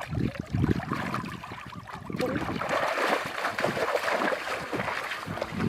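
Water sloshing and splashing, with irregular low knocks in the first two seconds and a steadier splashing hiss after that.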